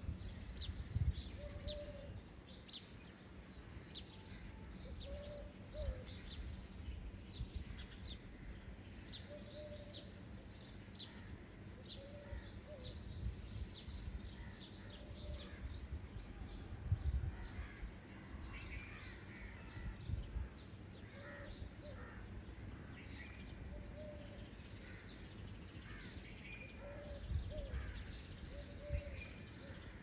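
Birds chirping in a busy, overlapping chorus, with a dove's low cooing call repeating about every two seconds. Irregular low rumbles on the microphone come and go.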